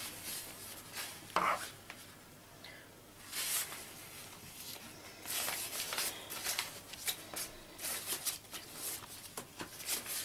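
A spoon scraping and knocking against a pot while thick choux pastry dough is scooped into a cloth piping bag, with rustling of the bag: irregular short clicks and scrapes, one sharper knock about a second and a half in.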